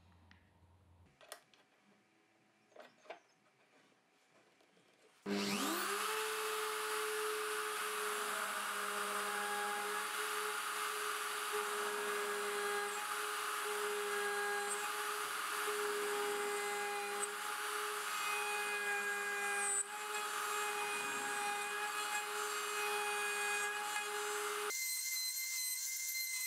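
A few faint clicks, then about five seconds in a small electric router in a homemade 3D router jig spins up and runs at a steady pitch, milling adjustment grooves into hard HPL blade-guide blocks. The sound changes abruptly near the end.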